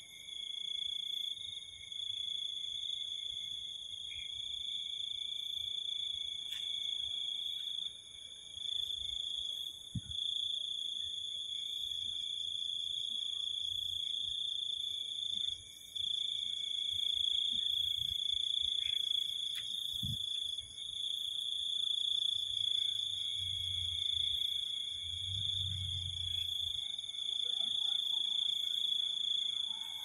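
Night chorus of crickets and other insects: several steady high-pitched chirring tones held without a break, with a faster pulsing trill above them. A few soft low thumps come through underneath.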